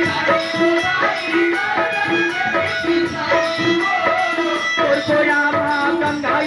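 Live Chhattisgarhi folk music: a steady drum beat and a short repeating melody line, with a voice singing over them.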